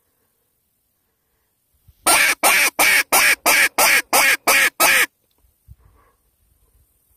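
Predator call blown in a run of about ten short, loud notes, about three a second, lasting about three seconds: a prey-distress call meant to lure a predator in.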